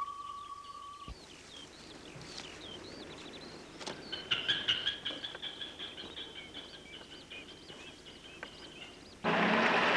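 Small birds chirping and singing, with many short, quick calls over faint background hiss. About a second in, a steady single tone stops. Near the end, the loud even noise of a bus's engine starts abruptly.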